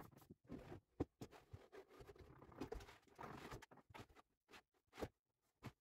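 Near silence broken by a handful of faint taps and knocks from a wooden crosscut sled being handled and slid on the table saw's top; the loudest come about a second in and about five seconds in.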